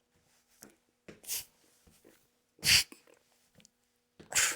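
A man breathing out hard in three sharp puffs about a second and a half apart, the effort of mountain climbers, with faint taps and rustles between.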